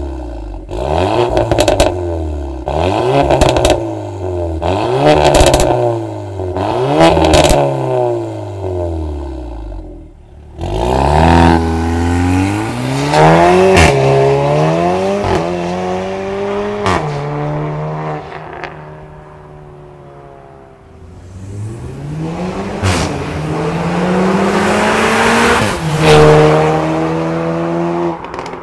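VW Tiguan R's 2.0-litre turbo four-cylinder, breathing through a catted downpipe and valved cat-back exhaust with the valves open, blipped about five times in quick rises and falls while standing. It then accelerates hard up through the gears, its pitch climbing and dropping at each shift, with a few sharp cracks at the shifts. It fades, then builds again to a loud peak near the end.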